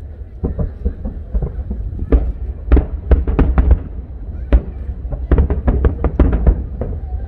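Aerial fireworks bursting: irregular sharp bangs throughout, with quick runs of bangs about three seconds in and again from about five to six and a half seconds in.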